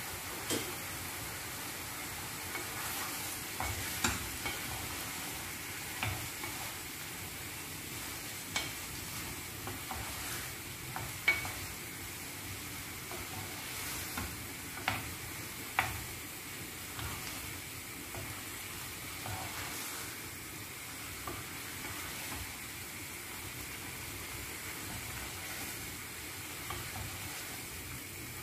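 Chicken breast pieces frying in oil with onion and garlic in a nonstick frying pan, a steady sizzle, while a wooden spoon stirs them and now and then knocks sharply against the pan.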